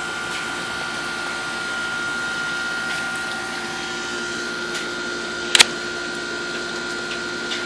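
Steady rain hiss under a constant mechanical hum. A single sharp click about five and a half seconds in.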